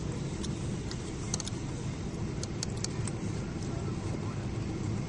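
Steady cabin noise of a Boeing 777-300 airliner on approach: a constant low rumble of engines and airflow, with a scatter of light clicks and rattles, most of them in the first three seconds.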